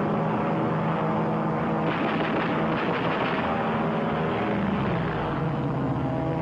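Piston engine of a propeller plane in flight, a steady drone whose pitch drops slightly about five seconds in.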